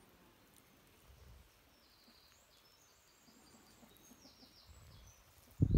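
Faint outdoor background with small birds chirping in short high notes, then a sudden burst of low rumbling near the end.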